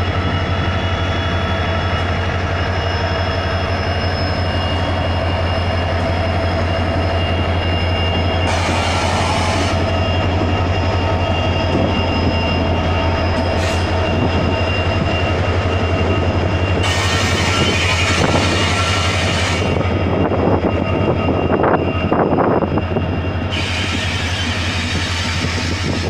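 WDP4D diesel-electric locomotive pulling away under power, with a steady low engine drone and a whine that fades as it passes, then passenger coaches rolling by with wheels clattering over the rail joints near the end. Gusts of rushing noise come and go three times.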